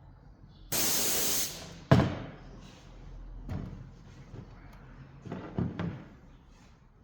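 A burst of hissing spray lasting under a second, followed by a sharp knock about two seconds in and then quieter scattered handling knocks and rustles.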